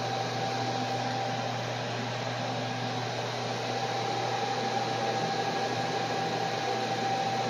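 Steady whir of equipment-rack cooling fans with a constant electrical hum and a thin steady whine.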